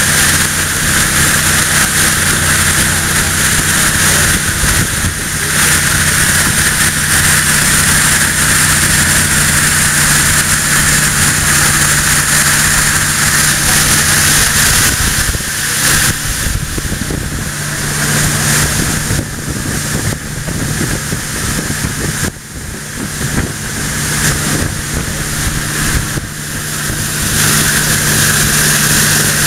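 A riverboat's engine runs steadily under way, mixed with a rush of wind and water. The noise wavers and dips a little in loudness in the second half.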